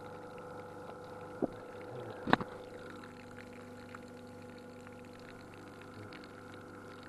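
Pressure washer pump running steadily while pressurising a steel test chamber, with water spraying out of the chamber's leaking flange seal. Two sharp knocks come about one and a half and two and a half seconds in, the second the loudest sound. A lower steady tone comes in about three seconds in.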